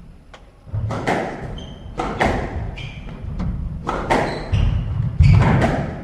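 Squash rally: the ball cracking off rackets and the court walls about once a second, starting about a second in, with short squeaks of court shoes on the wooden floor between the shots.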